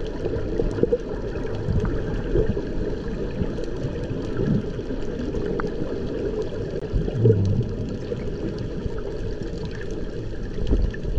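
Underwater ambience heard through a submerged camera housing: a steady low rushing and gurgling of water, with scattered faint clicks.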